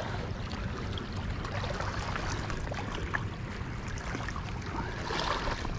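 Steady rushing noise of moving river water along a rocky bank, with a few faint clicks.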